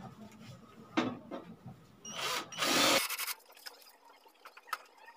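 Cordless drill-driver running in short bursts, backing out the cover screws of an amplifier: a brief burst about a second in and a longer one just after two seconds.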